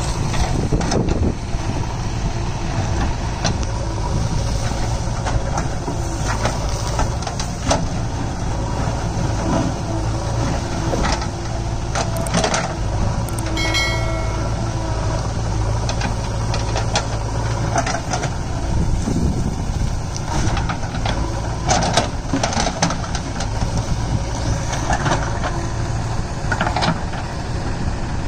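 JCB backhoe loader's diesel engine running steadily while it digs, with stones and soil clattering now and then as the bucket scrapes and drops rubble.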